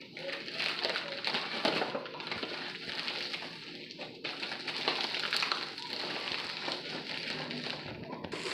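A box being opened by hand: continuous rustling and crinkling of packaging, with many small crackles and scrapes.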